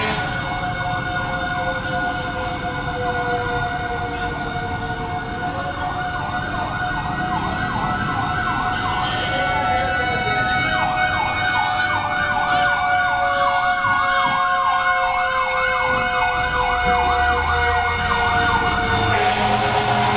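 A fast, evenly repeating warble like a siren's yelp, about two or three cycles a second, comes in about five seconds in and drops away near the end. Several steady whining tones and a slowly falling tone run under it.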